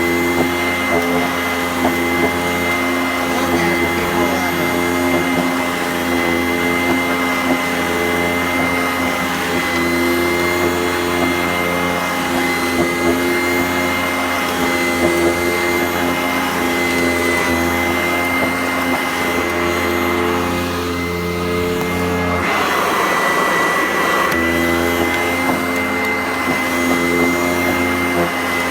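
Sanitaire SC886 upright vacuum cleaner running steadily while vacuuming carpet, a constant motor hum with a high whine. About two-thirds of the way through, the hum briefly changes for a second or two into a rushing sound before settling back.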